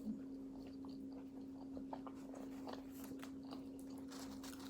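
Faint close-miked chewing of a bite of shrimp and potato, with small wet mouth clicks scattered throughout. A steady low hum runs underneath.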